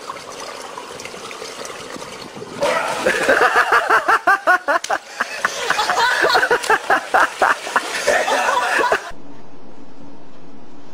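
Pool water sloshing, then people laughing hard for several seconds in quick repeated bursts. The laughter cuts off about nine seconds in and a steady low hum follows.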